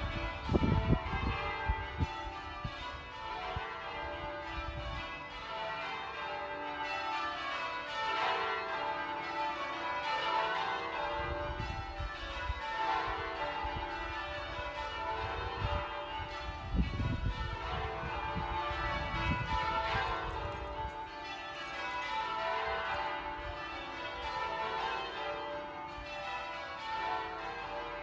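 Wymondham Abbey's ring of tower bells being rung full-circle in changes, a continuous run of overlapping bell strokes at an even pace. Bursts of low rumble come near the start and again through the middle.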